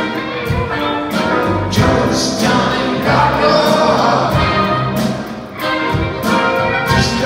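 Live rock band with an orchestra playing: electric guitar, upright bass and drum kit over orchestral instruments, with the drums keeping a steady beat.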